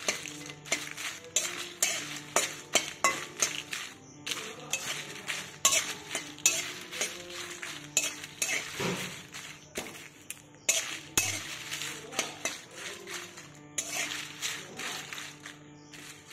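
Metal spatula scraping and clinking against a metal kadai while stirring dried red chillies and bay leaves as they dry-roast. The strokes come irregularly, about one or two a second, with a couple of brief pauses.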